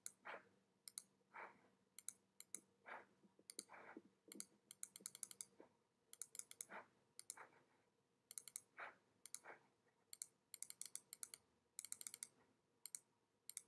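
Faint, irregular clicking of computer keys and buttons: scattered single clicks with a few quick runs of several presses in a row.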